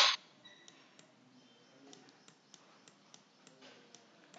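Faint, irregular clicks of a pointing device as handwriting is drawn on screen, about two a second. A short, sharp hiss at the very start is the loudest sound.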